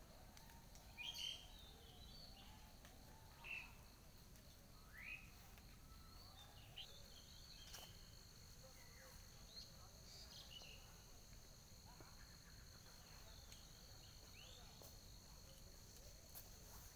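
Faint outdoor ambience: scattered short rising bird chirps every few seconds, the loudest about a second in, over a steady high-pitched insect drone that thickens about six seconds in.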